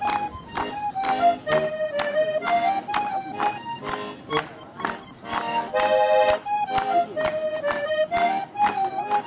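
Accordion playing a traditional folk dance tune, with a melody over a steady, even beat.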